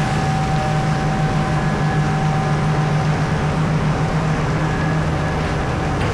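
Heavy mining machinery running steadily: a constant low engine hum with a thin, steady whine above it.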